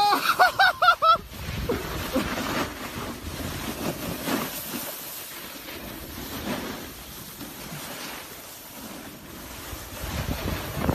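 A snowboard sliding and scraping over snow, with wind buffeting the microphone. In the first second a voice gives about five quick, high cries.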